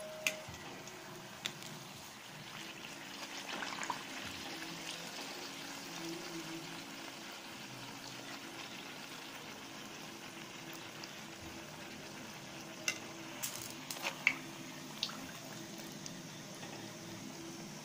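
A bhatura deep-frying in hot oil in a metal kadhai, the oil sizzling steadily. A few sharp clicks come near the start and again in a cluster a little before the end, as metal tongs touch the pan.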